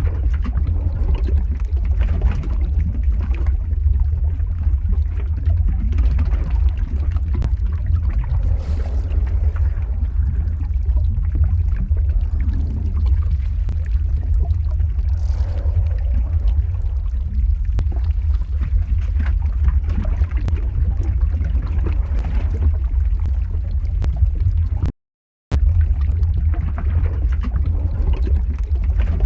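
Lava-flow ambience sound effect: a deep steady rumble with irregular crackling and liquid bubbling over it. Near the end it cuts out for about half a second and starts again, as a loop restarting.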